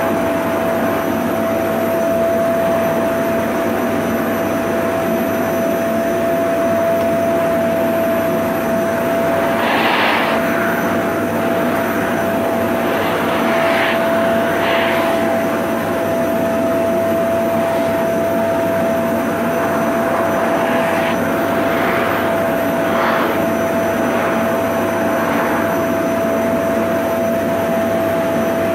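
Vacuum cleaner running steadily: a constant motor whine over a broad rush of air, with a few brief surges of higher hiss along the way.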